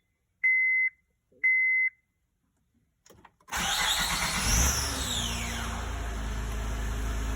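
Honda Odyssey's dashboard chime beeps twice, then after a short pause the V6 cranks and fires, with a high whine sliding down in pitch as it catches, and settles into a steady idle. The odd noise during cranking is what the owner believes is a faulty starter motor.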